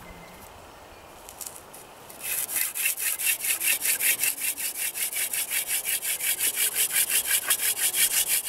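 Hand drill fire-making: a Jerusalem artichoke spindle spun back and forth between the palms, its tip grinding into a piece of chaga fungus. The rubbing starts about two seconds in and goes on as a fast, even rhythm of about five strokes a second.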